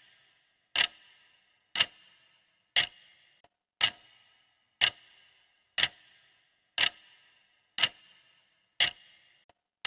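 Clock ticking, one sharp tick each second with a short ringing tail, as a countdown timer's ticking sound.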